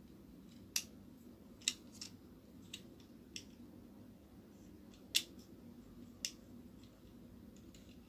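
Sparse, sharp plastic clicks at irregular intervals, the loudest about five seconds in, from small hard plastic puzzle pieces being handled and fitted together.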